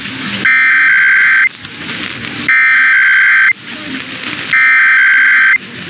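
Emergency Alert System SAME header: three identical bursts of warbling digital data tones, each about a second long and a second apart, sent over a broadcast radio station. They open an EAS test and encode the alert's originator, event and area.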